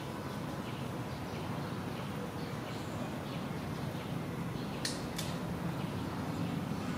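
Steady outdoor background noise with faint, scattered bird chirps, and two sharp clicks in quick succession about five seconds in.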